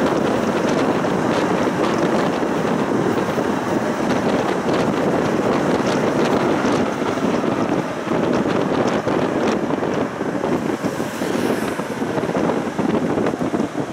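Moving tram running along its rails: a steady rumble mixed with wind buffeting the microphone, with scattered clicks and rattles. It eases off a little near the end.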